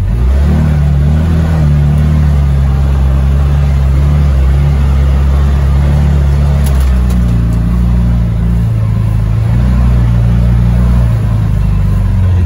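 CFMOTO UForce 600 side-by-side engine running under load while driving on its newly fitted RNG primary clutch kit, heard from the driver's seat. The engine note holds fairly steady, rising about half a second in and dipping and picking up again a little past the middle.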